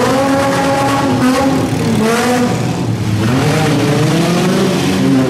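Six-cylinder demolition derby car engines revving hard, the pitch climbing, holding and dropping back several times as the cars push and ram each other.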